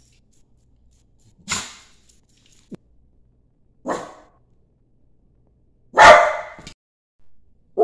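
Small dog barking three single sharp barks a couple of seconds apart, the third, about six seconds in, the loudest.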